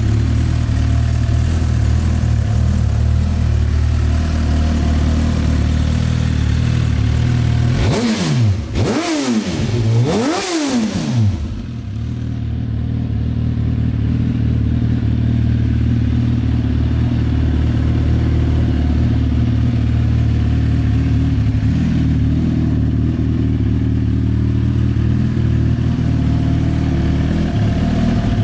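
Suzuki GSX-R1000's inline-four engine idling through an aftermarket Micron silencer, blipped twice about eight and ten seconds in, each rev rising and falling quickly before settling back to a steady idle.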